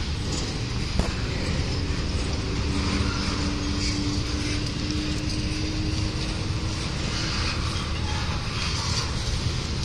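Doublestack intermodal freight train's well cars rolling slowly past, a steady rumble of steel wheels on the rails. There is a sharp click about a second in and a faint steady whine in the middle.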